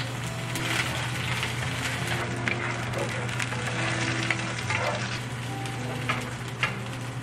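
Chopped scallion, ginger and garlic sizzling in hot oil in an enamelled cast-iron frying pan, with a wooden spatula scraping and tapping against the pan several times as it stirs. A steady low hum runs underneath.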